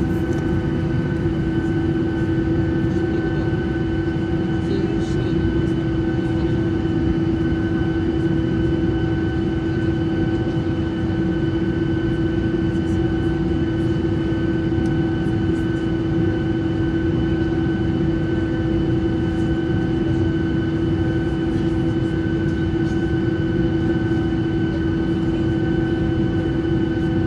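Boeing 737-800 jet engines running steadily, heard inside the passenger cabin: an even low rumble with a constant whine over it.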